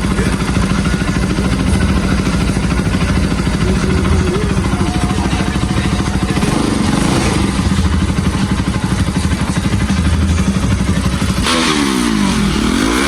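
Bajaj Pulsar 200's single-cylinder engine running steadily just after being restarted, with its timing chain and camshaft freshly replaced. Near the end its note changes, sweeping up and down.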